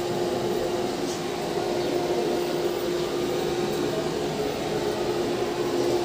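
Steady machine hum holding one constant pitch, with no breaks or strikes.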